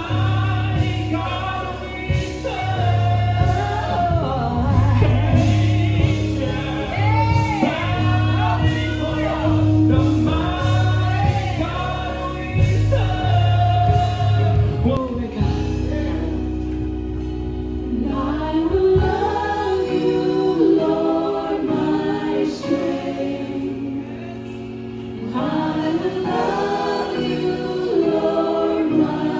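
Gospel music with choir singing over a steady bass beat. About halfway through the beat drops away and the singing carries on more lightly, building again near the end.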